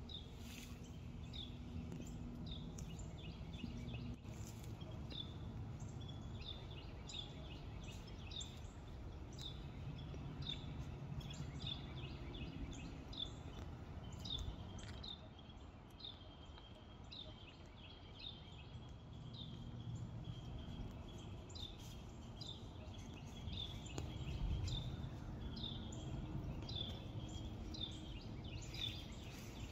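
Small birds chirping, short sharp notes one or two a second, over a low steady rumble.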